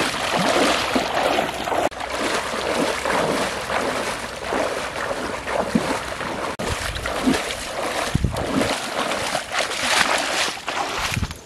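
Legs wading fast through shallow muddy floodwater, sloshing and splashing with every stride in a continuous, uneven rush of water.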